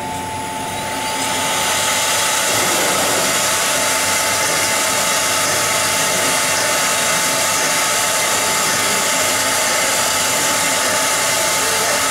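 Spindle of a four-spindle CNC wood router cutting particle board: a steady high whine over dense, noisy hiss. It builds up over the first two seconds as the cut gets going, then holds steady.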